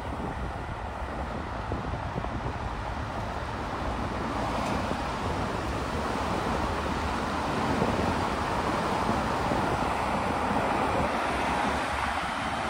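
Steady road traffic noise from cars on a city street, mixed with wind rushing over the microphone of a moving bicycle; a continuous noise that grows a little louder partway through.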